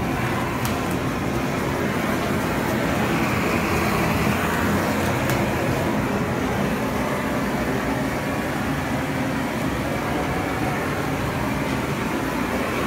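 Gas torch burning with a steady, even noise as its flame is played over a pig's hide to singe off the hair.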